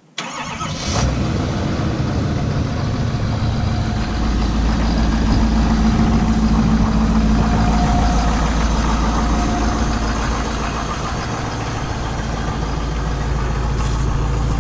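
2017 Ford Super Duty's 6.7-litre Power Stroke V8 turbo-diesel cold-starting: it fires right away, catches within about a second and settles into a steady, deep idle.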